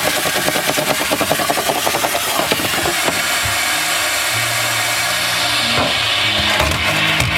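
Shop vacuum running steadily as its hose nozzle sucks up sanding dust inside a fibreglass kayak hull, with rhythmic scraping strokes of the nozzle against the hull for the first two or three seconds. Background music comes in during the second half.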